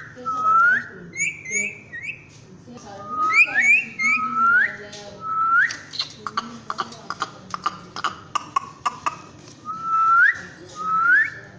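Rose-ringed parakeet whistling: a series of short rising whistle notes, each sweeping sharply up at its end, mixed with a few short high chirps. A quick run of sharp clicks comes in the middle.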